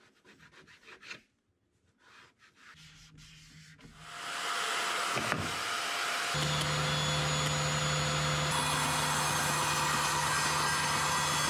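Faint rubbing of a rag wiping glue off wood, then from about four seconds in a SawStop cabinet table saw and its dust extraction start up and run steadily, a constant hum under a broad hiss.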